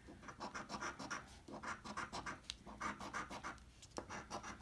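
A coin scraping the latex coating off a lottery scratch-off ticket in quick, short, repeated strokes.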